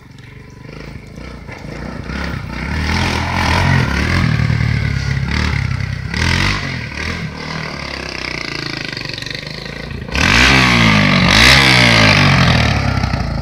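Kawasaki Mojave 250 sport ATV's single-cylinder four-stroke engine revving up and down as it is ridden, growing louder as it comes closer. From about ten seconds in it is at its loudest, with quick rising and falling sweeps in pitch as it passes close.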